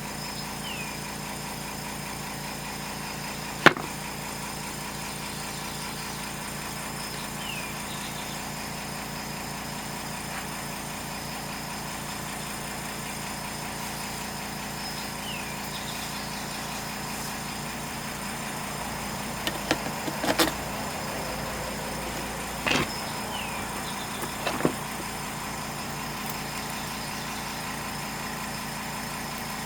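A steady machine hum with an even low pulse, broken by a few sharp knocks, one about four seconds in and a cluster about two-thirds of the way through.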